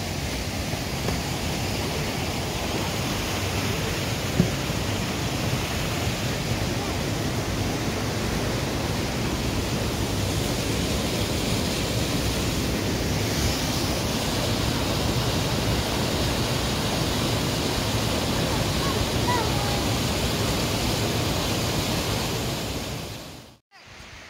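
Waterfall on a hill burn, white water rushing steadily down a rocky gorge in a dense, even roar, with one knock about four seconds in. It stops abruptly near the end.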